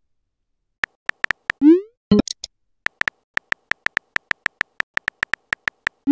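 Simulated phone-keyboard tap clicks as a text message is typed, a few at first and then a quick run of about four to five a second, with a short rising electronic pop of a message tone near two seconds in and again at the very end, and a brief electronic chime just after it.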